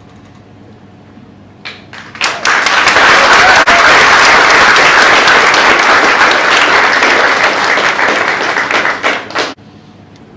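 Audience applause: a few scattered claps, then a dense burst of clapping lasting about seven seconds that cuts off abruptly near the end.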